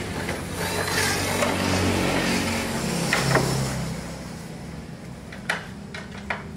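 A motor vehicle's engine running past on a nearby road, fading about four seconds in. A few sharp clicks near the end.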